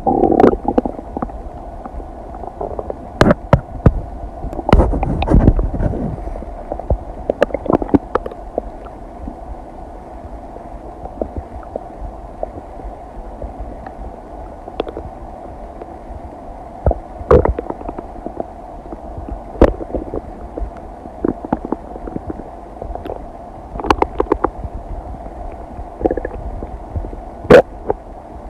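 A person's stomach digesting a meal: irregular gurgles and sharp little pops over a steady low rumble, with a longer gurgling run about five seconds in.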